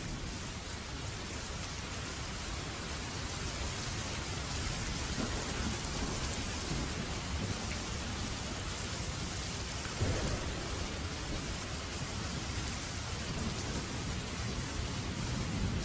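Steady heavy rain, with a deep low rumble of thunder underneath. There is a sudden louder crack about ten seconds in.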